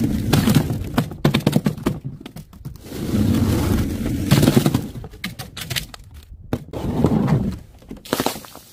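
Plastic drink bottles tumbling down steps: several bursts of rapid clattering knocks and thuds as they bounce and hit the treads.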